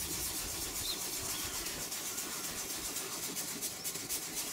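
Toothbrush bristles scrubbing foaming leather cleaner into a leather car seat in small circles, a steady soft rubbing hiss as ingrained dirt is lifted from the creases.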